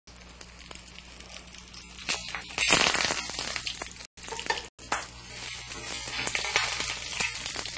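Foil-wrapped salmon roll frying in very hot peanut oil in a skillet, a steady sizzle that swells louder a few seconds in and again near the end as the roll is turned. The sound cuts out briefly twice in the middle.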